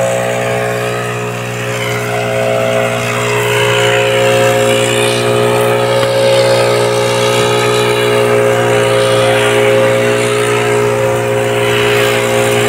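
Stihl backpack leaf blower engine running steadily, blasting air from its tube into burning grass.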